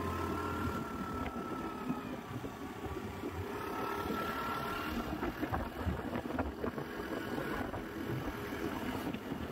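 Aprilia SR GT scooter's engine running while riding up a rough village road, with wind on the microphone.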